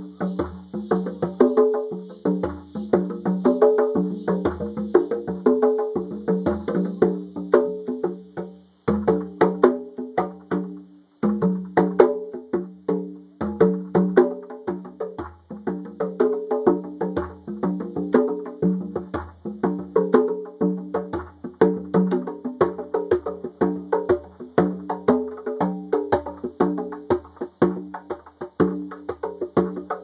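A pair of conga drums played by hand in a fast, steady rhythm, with a few brief breaks around nine to eleven seconds in. A steady high buzz of cicadas sits behind the drumming for the first several seconds and fades out about seven seconds in.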